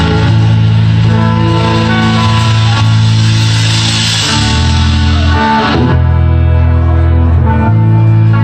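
Live rock band playing loud, heard from beside the stage: bass guitar holding long low notes under guitar and drums. The cymbal wash drops out about six seconds in.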